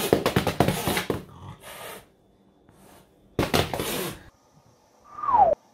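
Cat scuffling with a plush toy: bursts of rustling and scratching noise, the longest in the first second and a half and another about three and a half seconds in. Near the end comes a short tone sliding down in pitch, an added sound effect.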